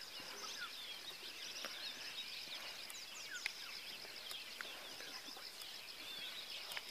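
Birds chirping and twittering many times over a steady high-pitched drone, a countryside ambience.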